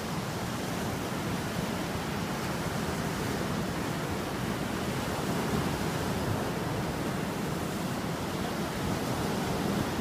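Ocean surf: small waves breaking and washing up the beach in a steady rush.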